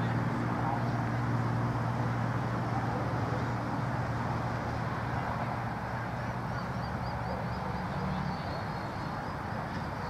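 A steady low engine-like hum over rough wind-like noise, the hum changing pitch about two-thirds of the way through, with a short run of high chirps around then.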